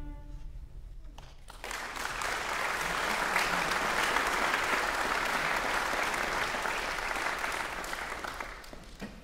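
Concert audience applauding at the end of a choral-orchestral piece: the last held chord fades out at the start, a second of quiet, then steady clapping that sets in, holds, and dies away near the end.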